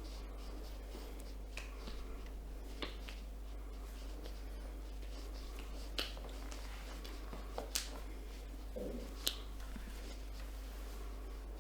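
Joints cracking during a chiropractic stretching adjustment: about half a dozen short, sharp pops at irregular intervals.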